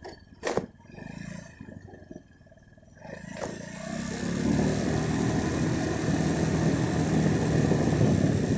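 Wind buffeting the microphone while moving fast along a road: a rushing noise that builds up about three seconds in and stays loud. A sharp knock comes about half a second in.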